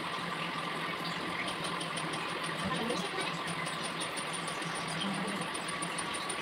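A small motor running steadily: an even whirring hum with a faint high whine.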